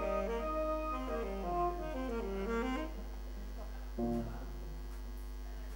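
Instrumental background music: a melody in short stepped notes that falls and rises, thinning to a quieter stretch after about three seconds. A steady low mains hum runs underneath.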